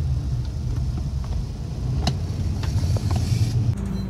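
Bus interior while under way: steady low engine and road rumble with small rattles, and a brief hiss about three seconds in.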